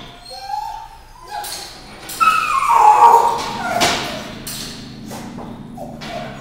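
Dog whining: a few short whines, then a loud, long whine that falls in pitch about two seconds in, followed by a sharp knock.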